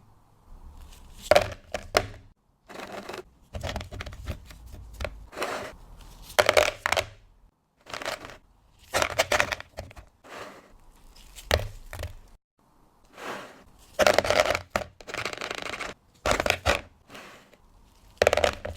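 Chocolate box and its packaging being handled: an irregular string of crinkles, tearing sounds and light knocks with short pauses between them.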